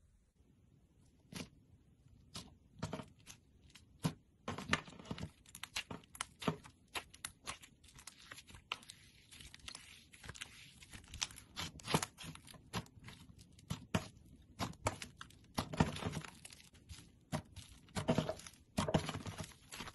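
Purple slime being stretched and squeezed by hands, giving an irregular run of sticky clicks, pops and crackles. It starts about a second in and thickens toward the end.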